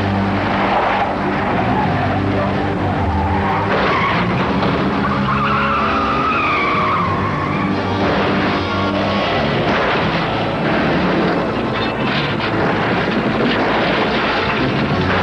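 Car and armored-truck engines running with tires skidding on gravel and dirt, over background music.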